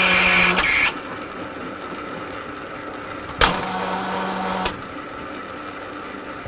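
Metal lathe running during a screw-cutting pass on a 4 TPI multi-start thread, the tool taking a 10 thou cut. Two louder stretches of about a second each sit over the steady machine sound: one at the very start with a strong hiss, and one about three and a half seconds in that begins with a sharp click.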